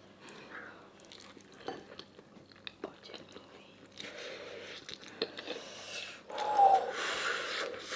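A person chewing food close to the microphone: small wet clicks and smacks, growing into a louder, noisier stretch of chewing in the second half.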